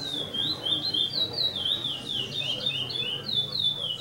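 A caged songbird singing a fast run of clear whistled notes that swoop down and up, about three a second, some notes overlapping as if a second bird joins in.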